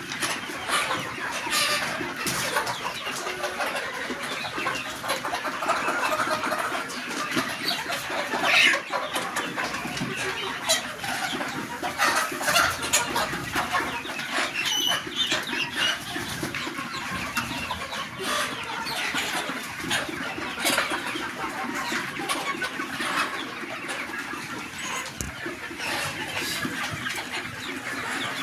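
A flock of desi chickens clucking continuously, many birds calling over one another, with scattered sharp clicks among the calls.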